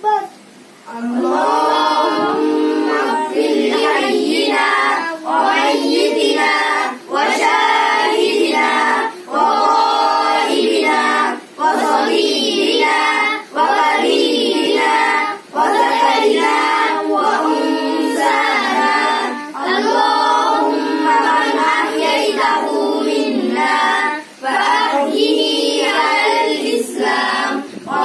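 A child's voice chanting Arabic funeral-prayer recitation aloud in a sung, melodic style, in phrases separated by brief pauses.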